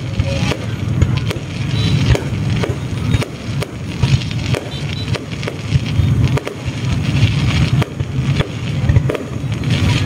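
Aerial fireworks display: a continuous run of shell bursts and sharp bangs with crackling, over a steady low rumble.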